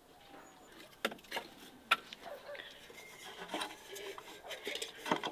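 Terracotta jug handled against a wooden beam: two sharp clinks, then scattered light knocks and rubbing.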